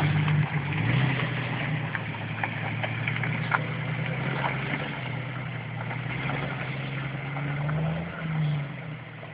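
Jeep TJ's 4.0-litre straight-six engine running at low revs as the Jeep crawls up a dirt trail, growing fainter as it pulls away, with a brief rev-up near the end. A few light clicks are heard along the way.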